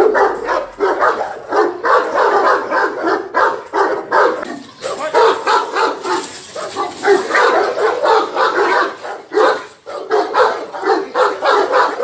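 Several guard dogs, two male Fila Brasileiros and a bully-type female, barking aggressively at someone provoking them at their pen, in rapid overlapping barks with brief lulls about four and a half and ten seconds in.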